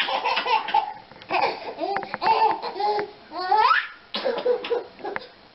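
Baby laughing in a run of short, high bursts, with a rising squeal a little past halfway.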